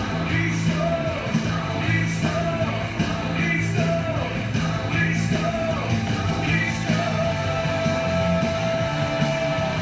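Rock-style worship song with a steady beat and a singing voice in repeated short phrases, ending on one long held sung note over the last few seconds.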